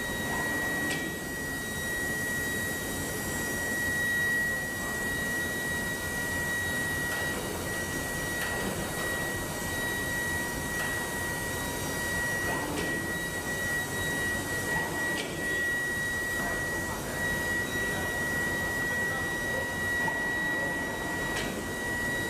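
Steady foundry machinery noise with a constant high-pitched whine, and a few light knocks scattered through it.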